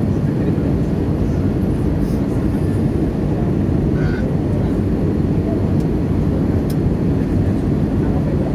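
Steady low rumble of an Airbus A320 airliner's engines and airflow, heard inside the passenger cabin on the approach to landing.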